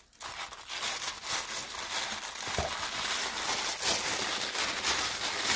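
Kraft-coloured tissue paper crinkling and rustling continuously as hands unfold it and pull it back to unwrap a parcel.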